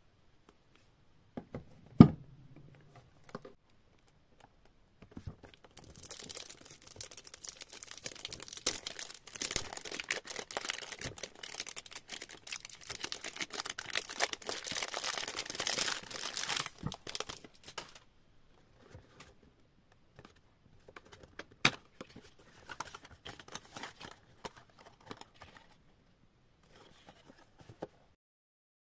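Clear cellophane wrap being torn and peeled off a cardboard perfume box, crinkling densely for about ten seconds. This is followed by lighter rustling and clicks as the box is opened and handled. A single sharp knock comes about two seconds in.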